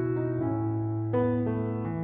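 Background piano music: a slow melody of held notes over low bass notes, changing every half second or so.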